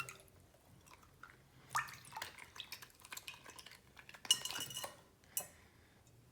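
A water-filled squishy toy being cut open and handled: scattered light clinks and taps with drips of liquid.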